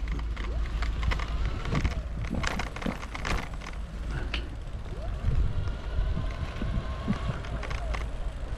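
Bicycle riding along a paved path, its frame and fittings rattling and clicking over the bumps in the surface, over a steady low rumble of wind on the camera's microphone.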